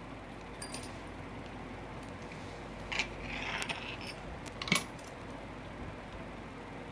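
Cloth rustling as it is handled and positioned at a sewing machine, with a few small sharp metallic clicks, the loudest about two-thirds of the way through. The machine itself is not running.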